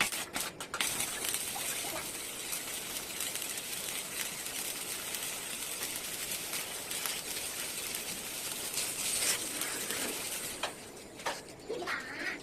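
Arc welding: a steady crackling hiss that runs for about ten seconds, with a few sharp clicks as it begins. Birds chirp briefly near the end.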